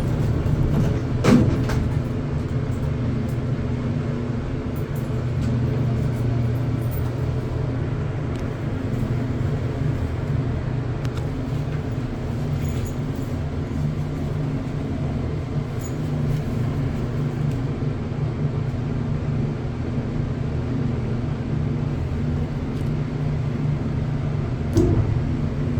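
Steady low rumble and hum of background machinery, with a few faint scattered clicks.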